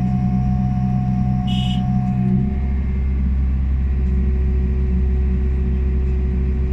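Liebherr 926 excavator's diesel engine running steadily with a droning hum; its note drops to a lower pitch about two and a half seconds in.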